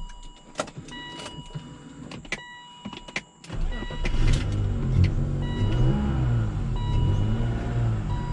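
BMW 530i M54 straight-six starts up about three and a half seconds in and runs with an uneven, wavering idle. Before that, short high warning-chime tones and clicks sound. The engine is still running rough after a new mass airflow sensor, which the owner suspects may also be a fuel pump problem.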